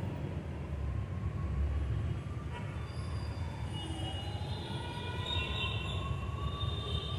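Ambulance siren wailing, its pitch slowly falling and rising and growing stronger over the second half, over a steady low rumble.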